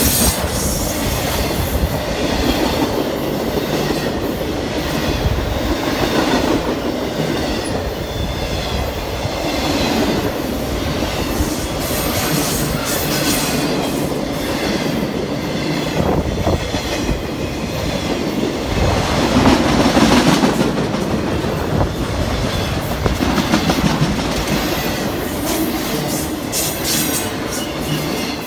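Cars of a CSX intermodal freight train rolling steadily past, wheels clacking in groups over rail joints.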